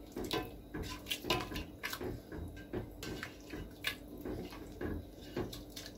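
Thin spiced broth sloshing and dripping in a steel pressure-cooker pot as a piece of beef goes in and a spoon stirs it, with irregular light clicks and splashes throughout.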